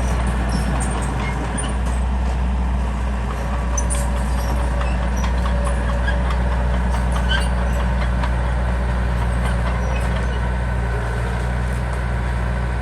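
Heavy diesel engine of an earth-moving machine running steadily with a deep, even hum, with scattered light clicks and squeaks over it.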